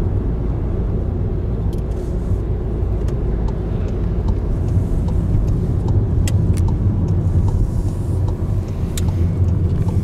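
Steady low engine and road rumble heard from inside a moving car, with a few faint clicks.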